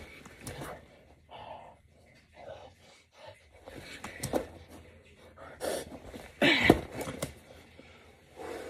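A man breathing hard in short, forceful bursts while doing push-ups under a 20 lb weight vest. About six and a half seconds in comes a loud, strained grunt.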